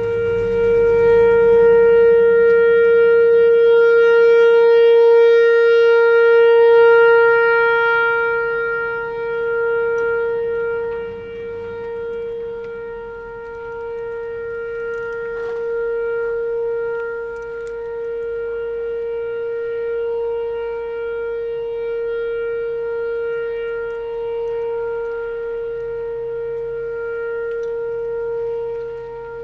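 Whelen Vortex R4 outdoor warning siren sounding the full alert, a single steady tone that holds its pitch. It swells and fades as the rotating siren turns, loudest over the first several seconds.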